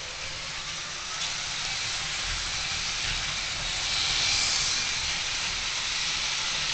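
Model railway train, a model class 56 diesel locomotive hauling container wagons, running on the layout's track: a steady rushing whir of the motor and wheels on the rails, swelling gradually to its loudest about four seconds in.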